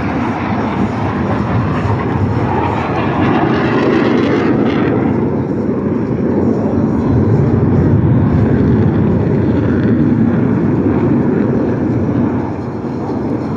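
Military display jets flying past, a loud continuous roar of jet engines that swells twice and eases off near the end.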